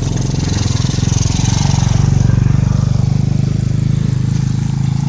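A small motorcycle engine running close by with an even, steady pulse. It grows louder to about two seconds in, then eases off as it passes.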